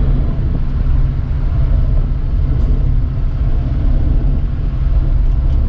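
Reliant Regal three-wheeler's engine running with road noise at a steady cruising speed, heard from inside the car as a steady low drone.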